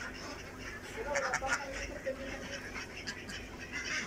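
A flock of domestic ducks quacking, with scattered calls and a cluster of them about a second in.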